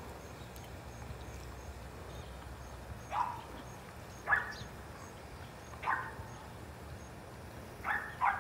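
A dog barking in short, high yips, five in all at uneven gaps of one to two seconds, the last two close together.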